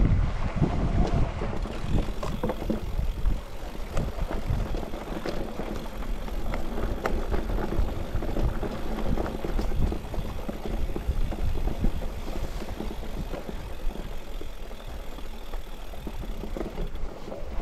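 Electric mountain bike rolling over rough ground: tyre noise and a steady run of small rattles and clicks from the bike, with wind rumbling on the microphone, loudest in the first couple of seconds.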